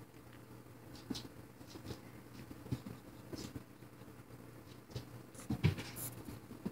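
Cats' paws pattering and scrabbling on a laminate floor as they dash and pounce, with scattered light taps and a louder thump near the end. A faint steady low hum runs underneath.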